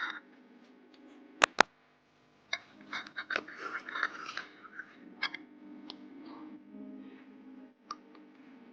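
Handling noises: two sharp clicks about a second and a half in, then a stretch of crinkly scratching and rustling, with a few more scattered clicks, over a faint steady low hum.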